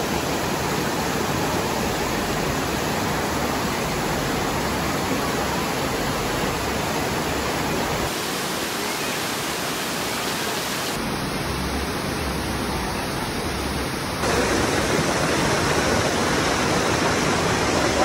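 Waterfall and its stream rushing and splashing over boulders: a steady, dense roar of water that gets a step louder about three-quarters of the way through.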